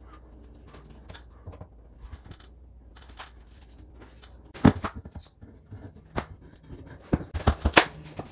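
Handling sounds of wooden door trim being glued and fitted: small scattered clicks, a louder knock about halfway, and several sharp knocks near the end as the primed wooden head casing is set onto the side casings.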